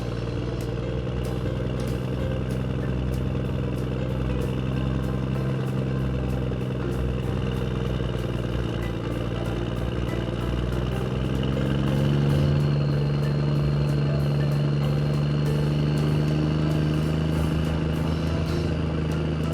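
An engine running steadily, its pitch rising a little about eleven seconds in, with light clicks throughout.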